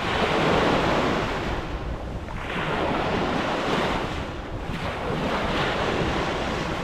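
Sea surf washing in, the hiss swelling and ebbing in several surges, with wind buffeting the microphone as a low rumble.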